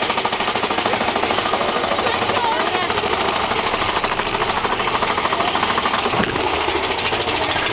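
Big Thunder Mountain Railroad mine-train roller coaster rattling along its track with a fast, steady clatter that does not let up.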